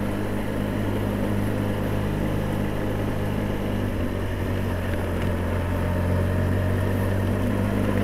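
Motorcycle engine running at a steady, even pitch while the bike is ridden.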